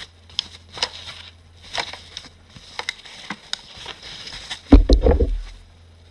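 Handling of a compact mechanical keyboard: scattered light clicks and rustles, then one loud, low thump about three-quarters of the way through, as of the keyboard being set down or knocked against the desk or microphone.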